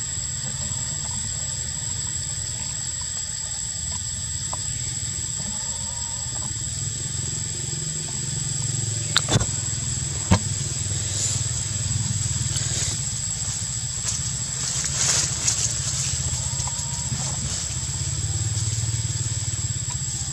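Outdoor forest ambience: a steady low rumble under a steady thin high whine. Two sharp snaps come near the middle, and a spell of crackly rustling follows a few seconds later.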